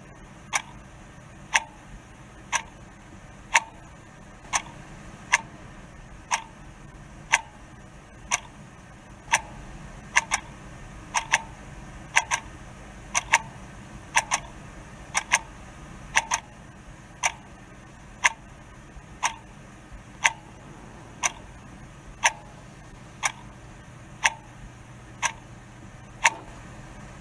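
Steady, even ticking: one sharp click about every second, now and then two close together.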